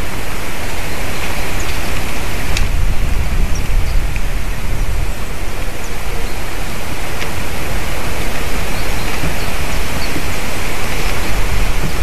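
Wind buffeting the microphone of a treetop nest camera: a loud, steady rushing with a deep rumble underneath. A few faint short ticks sound over it, one about two and a half seconds in and another past the middle.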